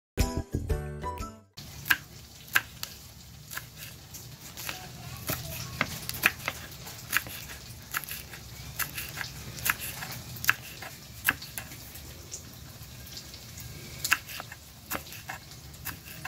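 Kitchen knife slicing green chili peppers on a wooden cutting board: sharp, irregular clicks of the blade striking the board, about one or two a second. A brief burst of music opens.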